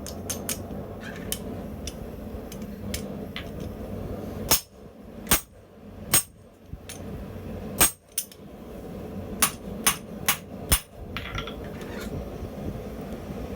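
Hand hammer striking a blacksmith's guillotine tool on hot steel: about a dozen separate, irregularly spaced blows, the loudest grouped in the middle, over a steady low rushing noise.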